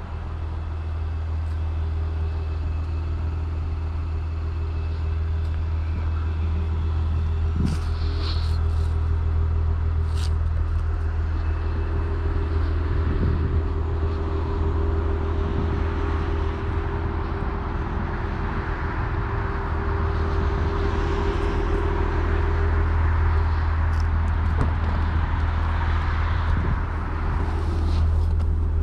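The 2024 Cadillac CT5-V's twin-turbo 3.0-litre V6 running steadily, heard from the driver's seat: an even low hum at a constant pitch with no revving. A few light clicks come about eight and ten seconds in.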